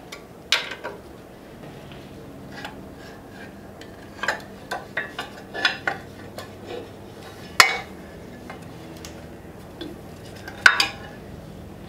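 Metal clinks and knocks of hand tools and bolts while a motorcycle's front fender is unbolted. They come one at a time: one about half a second in, a run of them around four to six seconds in, and the sharpest at about seven and a half and ten and a half seconds.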